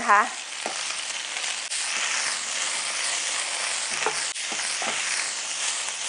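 Mung bean sprouts sizzling in hot oil in a stainless steel frying pan, stir-fried with a spatula until just wilted: a steady, even sizzle.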